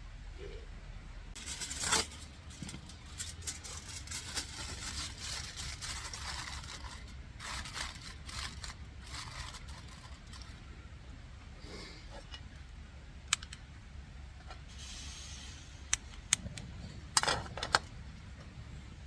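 Handling noises: rustling and scraping for the first half or so, then several sharp clicks and a short clatter near the end, over a steady low rumble.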